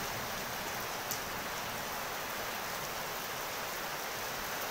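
Heavy rain falling steadily on wet paved ground, an even hiss without a break.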